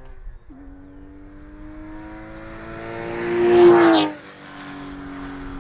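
Porsche 996 Carrera flat-six through EVOX ValveTronic stainless mufflers, pulling under acceleration. Its note rises steadily in pitch and loudness to a peak about three and a half seconds in, then drops off sharply and settles to a quieter steady drone.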